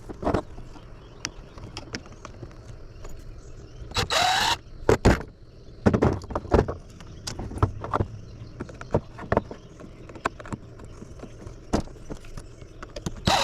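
Irregular metal clinks and knocks of tools and parts while a small electric motor is unfastened from an old radio chassis. There is a short squeal about four seconds in and another at the end.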